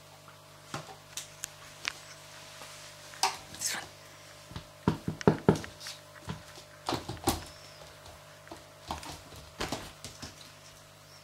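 Dalmatian puppy scampering on a laminate floor: an irregular run of claw clicks, scuffs and knocks, busiest and loudest in the middle, as it plays and scrambles into a fabric crate.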